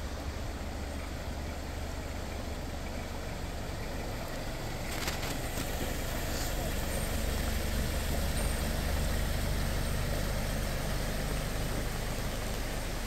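Pickup truck wading slowly through a flooded ford: a low, steady engine hum under the wash of water pushed aside by its wheels. It grows louder as the truck comes past, with a few short clicks about five seconds in.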